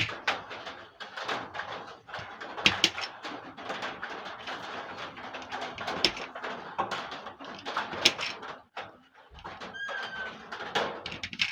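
Curtain track parts being handled: a busy run of small clicks, rattles and rustling. About ten seconds in comes one brief squeak.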